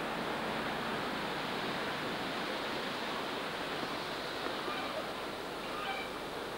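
Wind rushing steadily through the leaves of a birch tree. A few faint short high notes come in near the end.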